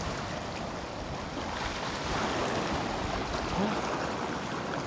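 Sea waves washing against shoreline rocks: a steady rushing surf that swells a little in the middle.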